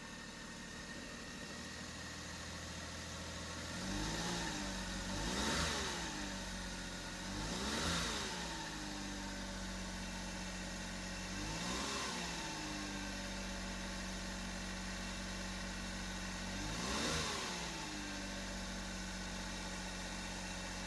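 Daihatsu Hijet truck engine idling steadily, with a rebuilt alternator just fitted in place of the noisy one. The throttle is blipped briefly several times, each rev rising and falling back to idle.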